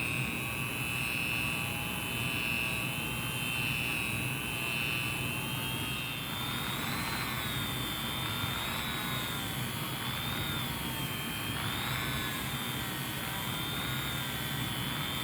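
Rotary tool spinning a soft puffball polishing wheel, polishing a plastic tool handle with Flitz: a steady high motor whine that steps up in pitch about six seconds in and then wavers up and down.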